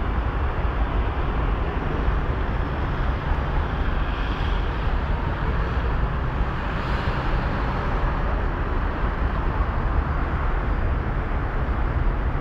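Steady outdoor city background of distant road traffic, with a heavy low rumble.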